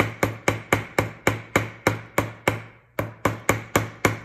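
Chasing hammer tapping the end of a wire rivet to spread it into a head, in quick, even light taps about four a second, each with a short metallic ring. The tapping pauses briefly near three seconds in, then resumes.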